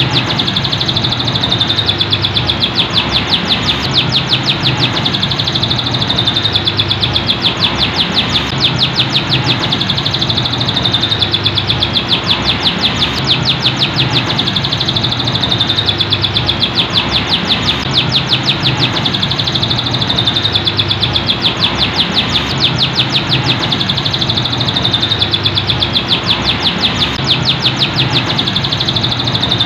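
Caged canary singing without a break: long runs of fast, rapidly repeated trilled notes that swell and ease every couple of seconds.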